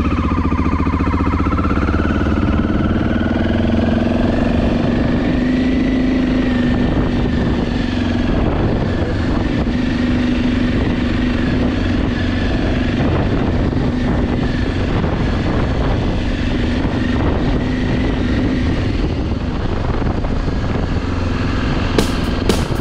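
BMW F650GS Dakar's single-cylinder engine running as the motorcycle is ridden off-road. The engine note rises over the first few seconds as it accelerates, then holds fairly steady.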